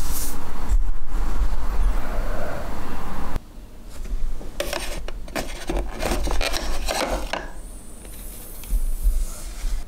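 Loud rustling handling noise with a low rumble that cuts off abruptly about three seconds in. After a quieter gap comes a run of scrapes and clicks as a plastic air-conditioner remote is pulled out of a plastic remote caddy and handled.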